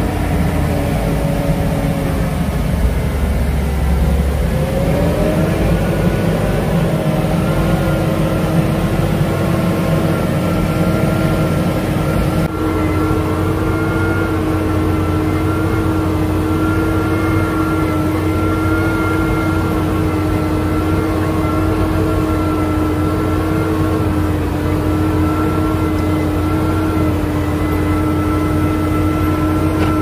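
Tractor diesel engine running steadily while pulling a plough through stubble. Its pitch dips slightly, then climbs about five seconds in and holds steady.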